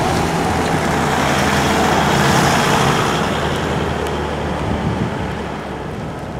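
A motor vehicle driving past, its engine and tyre noise swelling to a peak about two and a half seconds in and then fading away.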